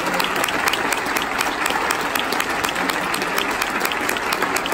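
A large crowd applauding steadily, with individual sharp claps standing out over a dense wash of clapping.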